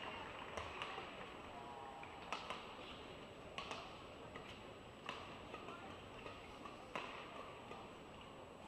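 Faint hall ambience of an arena crowd murmuring, with a handful of short sharp clicks and knocks scattered through it.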